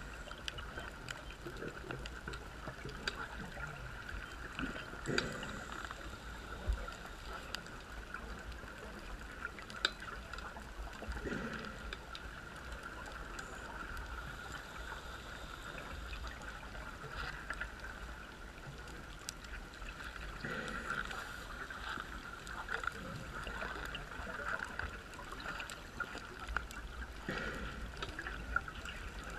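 Underwater sound on a wreck dive: divers' exhaled bubbles gurgling in swells every few seconds, over a steady hiss with a constant high hum and scattered faint clicks.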